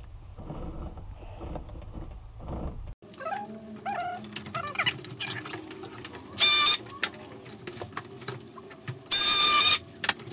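Electrical cable being worked through wall and attic holes: low rustling and scraping as the cable is shoved down through the insulation, then handling clicks and two loud, high squeals, a short one and a longer one, as cable is pulled against the box and wood.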